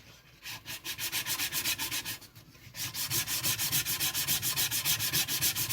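Hand-sanding with a strip cut from an old cloth sanding belt, pulled back and forth over the wood of a stool in quick, even strokes. A first run of strokes is followed by a short pause, then a faster, steady rhythm of about five strokes a second.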